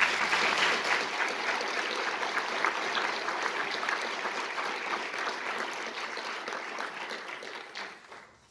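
Audience applause: a steady round of clapping from a seated crowd, tailing off near the end.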